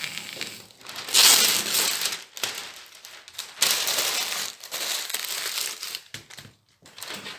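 Brown masking paper being pulled off a dispenser roll, torn away and crumpled into a ball by hand: loud papery crackling and rustling in two long stretches, one starting about a second in and one from about the middle, with quieter rustles around them.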